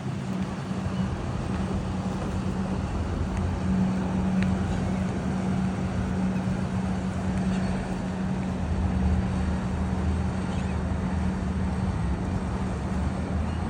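A boat engine droning steadily as a low, even hum, under a constant wash of wind and water noise.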